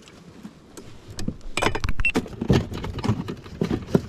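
A quick, irregular run of knocks and rattles, starting about a second in and going on to the end, with a brief high squeak in the middle.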